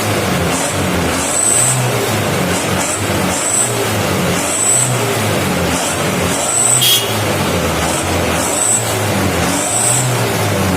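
1985 Toyota Hiace's diesel engine, its rotary injection pump just serviced, revving up and back down over and over, roughly every one and a half to two seconds. It runs smoothly without misfiring, in what is said to be normal running.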